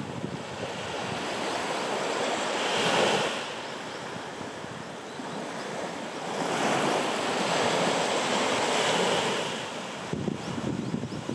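Small sea waves washing up a beach: surf swells once about three seconds in and again for longer in the second half, with wind on the microphone underneath.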